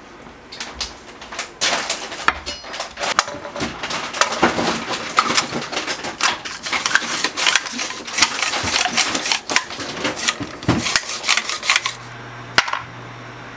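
Garlic cloves being sliced in a hand-operated plastic garlic slicer: rapid, irregular clicking and scraping strokes of the blade. After about twelve seconds these stop, leaving a quieter steady low hum.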